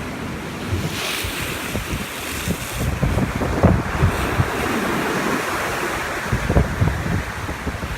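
Typhoon-driven sea waves breaking and washing in as a continuous rush of surf, with gusty wind buffeting the microphone in irregular low rumbles.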